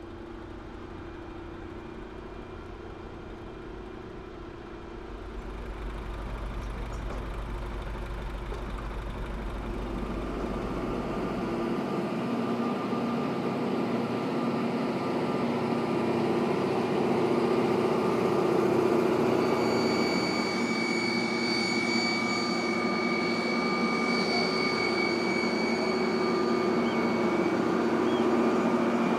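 Jet aircraft turbine noise: a steady hum with a held whine that builds slowly in loudness, with higher whining tones joining about two-thirds through.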